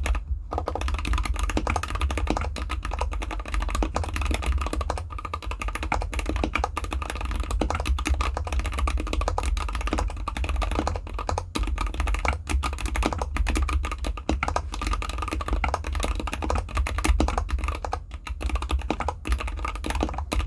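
Rapid continuous typing on a GK64X mechanical keyboard with Gateron Cap Gold linear switches, factory-lubed, in an anodized aluminium case with dampening foam, played without a desk mat: a dense, steady stream of keystroke clacks.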